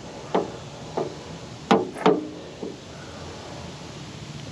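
Drain plug and fingers knocking and clicking against the car's underside as the plug is lined up to be threaded back in: about five short sharp knocks in the first three seconds, the loudest two close together in the middle, one ringing briefly.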